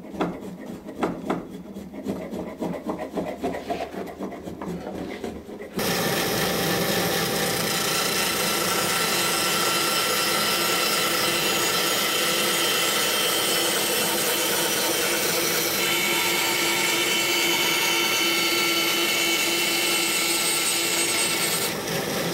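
Irregular clicks and scraping as a bandsaw's tilting table is set to an angle. About six seconds in, the bandsaw is running and cutting a bevel along a wooden boat knee, a loud, steady sawing noise.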